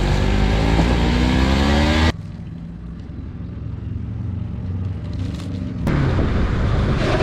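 Vehicle engine revving up, its pitch rising, until it cuts off abruptly about two seconds in. A quieter low rumble follows and slowly builds, and a louder engine sound returns near the end.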